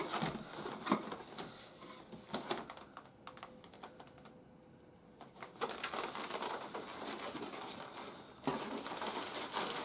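Cardboard and plastic toy packaging being handled and opened by hand: scattered light clicks and taps, a quieter pause near the middle, then steady rustling of packaging from about halfway on.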